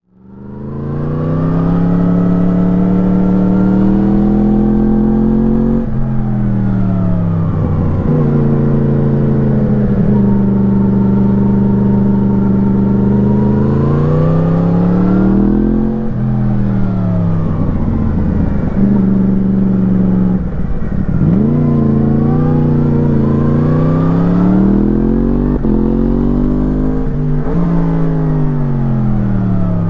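2017 Yamaha MT-10's 998 cc crossplane inline-four through an Akrapovič slip-on exhaust, heard onboard while riding. The engine note fades in, then rises and falls over and over as the bike accelerates and slows, with several sudden drops in pitch.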